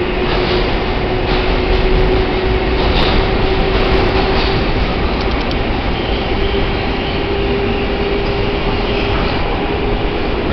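New York City Subway 6 train running: a steady rumble of wheels on rails under a steady motor hum.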